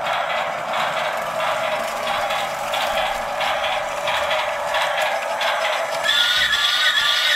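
Toy train running on plastic track: a steady rattling clatter of its small motor and wheels, with clicks over the track joints. About six seconds in a higher whine joins as the train comes towards the camera.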